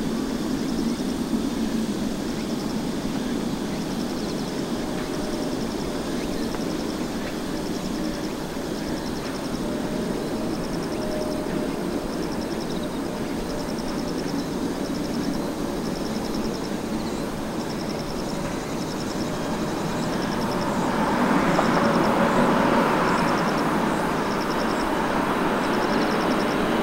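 Jet noise from a Korean Air Boeing 777-300ER's GE90 engines: a steady rumble that grows louder and fuller about 20 seconds in. A faint high chirp repeats about once a second in the background.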